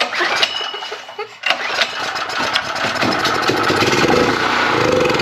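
Predator 4000 generator's 212cc single-cylinder engine being cranked and catching about a second and a half in, running on carburetor cleaner sprayed into the intake. It will only fire on the cleaner, not its own fuel, the sign of a clogged carburetor.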